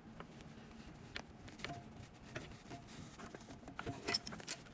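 A wrench tightening the brass fitting of a shampoo-bowl sprayer hose, giving a series of light metal clicks and taps. The sharpest clicks come a little after four seconds in.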